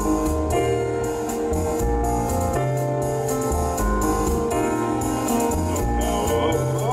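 Live jazz band playing: piano chords over a double bass line, with the drum kit keeping time on the cymbals.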